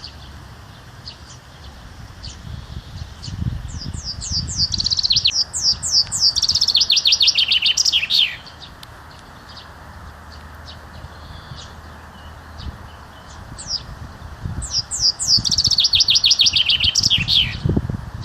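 A songbird singing two long phrases, each a quick run of high notes that slide down in pitch and crowd into a dense run at the end, with a pause of about six seconds between them.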